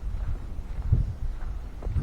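Footsteps of someone walking on a beach, with two heavier steps about a second apart, over a steady low rumble of wind on the microphone.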